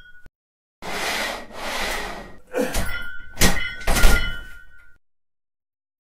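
Title-animation sound effects: two rushing whooshes, then three heavy thuds with a ringing metallic tone.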